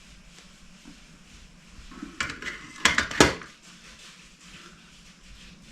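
A few sharp metallic clinks and clicks of a bushing removal tool and pedal parts being worked, bunched about two to three seconds in, as the old bush is pulled off a flat pedal's axle.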